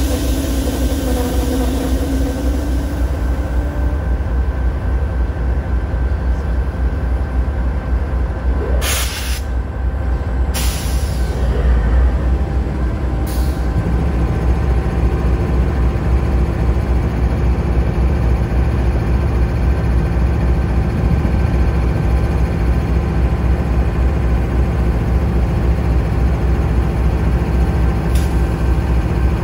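Diesel freight locomotive running with a steady low rumble, a pitched tone in the first few seconds, and two short air hisses about nine and ten and a half seconds in; the rumble grows heavier from about fourteen seconds on.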